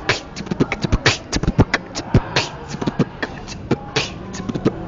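Beatboxed kick roll with an added K: a fast run of mouth-made bass-drum kicks built from the letters T, B, D, B plus K, imitating a drummer's double-pedal bass drum. Sharp hi-hat-like clicks mix with the kicks, and the deepest thumps come about one to two seconds in.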